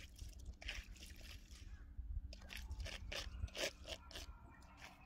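Faint, irregular crunching and ticking in snow and ice, several small crunches a second, over a low steady rumble.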